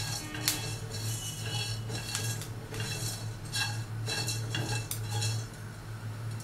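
A spatula stirring and scraping whole spices as they dry-roast in a nonstick kadai, in irregular strokes against the pan, over a steady low hum. The spices are close to fully roasted.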